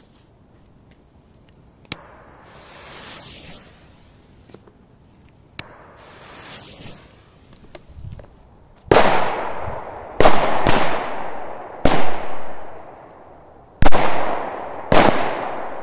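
Korsar tube firecrackers: twice a click and a short hiss as fuses are lit, then about six sharp bangs in quick succession over the second half, each trailing off in echo.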